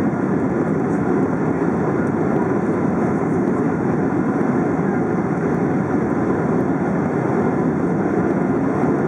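Steady, loud cabin noise inside a Boeing 777: the jet's engines and airflow heard from a window seat.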